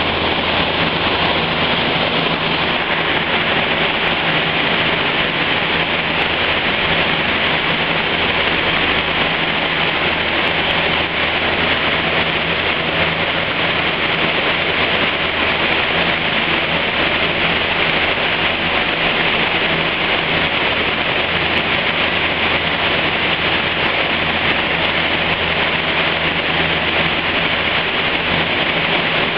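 A hatchback's engine, fitted with a cone air filter, running at a steady speed on a chassis dynamometer, with the driven wheels spinning the rollers. It makes a loud, even rush of noise over a low hum, with no change in revs.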